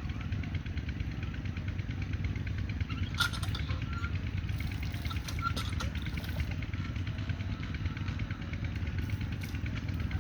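Common mynas chirping and whistling faintly over a steady low rumble, which is the loudest sound throughout. There is a sharp click about three seconds in.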